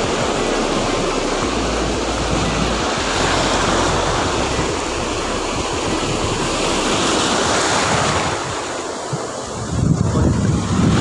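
Sea surf washing in and breaking over the shore, strong waves, with wind noise on the microphone that grows louder near the end.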